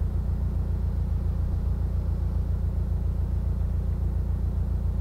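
Steady low rumble with a fine, even pulse, unchanged throughout.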